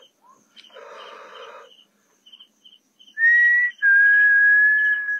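A person whistling two long steady notes about three seconds in, the second longer and slightly lower, with breath audible beneath them; before that, two short breathy hisses. Crickets chirp faintly in a steady rhythm.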